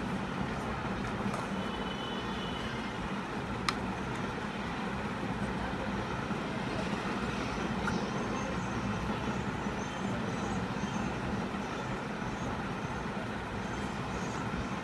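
Steady low hum and hiss of background noise, like distant traffic, with one sharp click about four seconds in.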